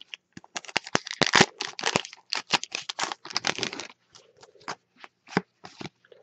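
Foil hockey card pack wrapper being torn open and crinkled by hand: a dense run of crackles for about four seconds, thinning to a few scattered ones.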